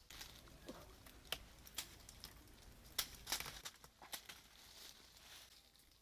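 Rustling with a quick, irregular run of light clicks and knocks as clusters of small fruit and their stems are handled and dropped into a woven wicker basket; the sharpest knock comes about three seconds in.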